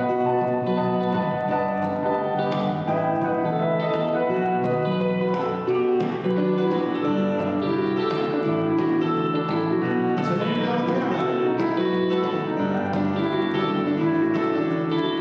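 A band playing live, guitar and piano prominent, in an unbroken passage with no vocals heard.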